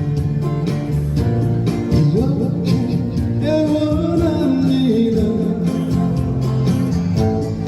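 Live band music with guitar and bass, and a gliding melody line over them about halfway through.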